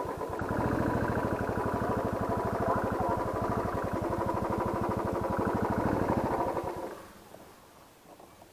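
Single-cylinder Royal Enfield Classic 350 engine idling with a steady, even beat, then switched off about seven seconds in.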